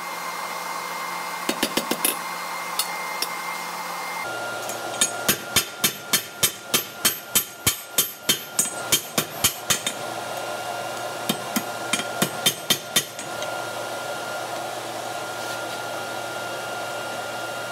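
Hand hammer striking a red-hot steel tong blank on an anvil: runs of sharp blows, about three a second at the busiest, with short pauses between runs, over a steady rushing background noise.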